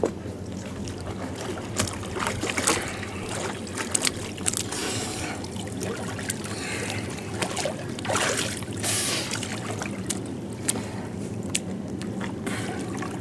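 Water splashing and lapping as a person swims in the water beside an inflatable boat, with irregular splashes from the strokes and a few louder surges of churned water.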